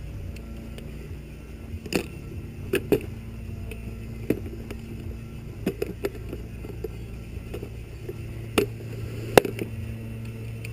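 Fiberglass fairing panels knocking and clicking against each other and the bike as they are handled and test-fitted: about eight short, irregular knocks, the loudest near the end, over a steady low hum.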